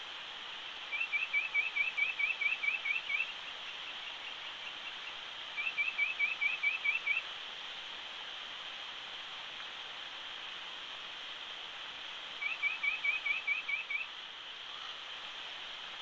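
White-breasted nuthatch singing: three runs of quick rising notes at about five a second, each run one to two seconds long, over a steady hiss.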